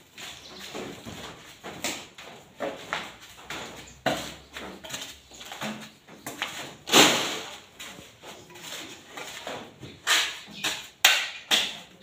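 Irregular scraping and rustling of damp sand-and-cement floor mix as it is pushed and spread by hand, with the loudest scrape about seven seconds in and a run of sharper scrapes near the end.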